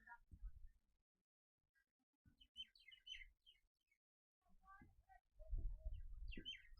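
Small birds chirping: quick, high, downward-sliding notes in two clusters, one a couple of seconds in and another near the end. A low rumble runs under the second cluster.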